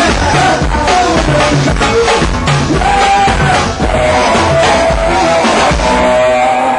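Live band playing a loud rock-style song with a steady drum kit beat, guitar and keyboard.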